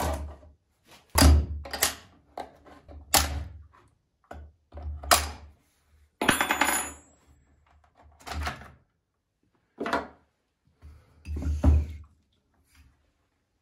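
Top cover of a Husqvarna 435 X-Torq chainsaw being unscrewed and lifted off on a wooden workbench: a string of about seven separate knocks and clicks of tool, plastic and wood, a second or two apart, with a brief metallic ring about six seconds in.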